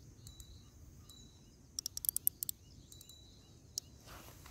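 Spinning fishing reel clicking in quick runs of small ticks as it is set by hand, the busiest run about two seconds in, with a few single clicks around it.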